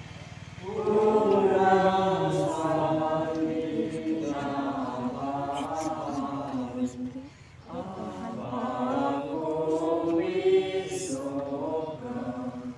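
A group of people singing a hymn together from hymn books, voices in unison with long held notes in phrases and a brief pause about seven seconds in.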